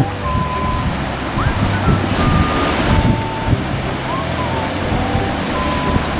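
Ocean surf washing and breaking around sea stacks, a continuous rushing wash, with wind buffeting the microphone. A thin whistle of held notes at changing pitch sits faintly above it.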